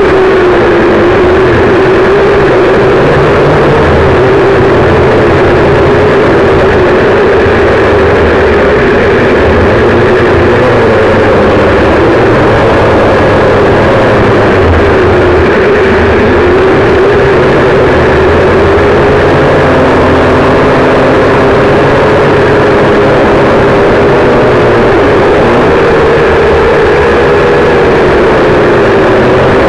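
Quadcopter drone's electric motors and propellers running loudly, picked up by the camera on the drone itself. It is a steady buzzing hum with a tone whose pitch wavers slowly up and down as it flies.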